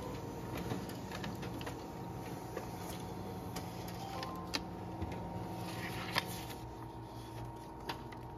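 Office multifunction laser printer running as it feeds sheets out onto its output tray: a steady mechanical whir and hum with a few sharp clicks from the paper path.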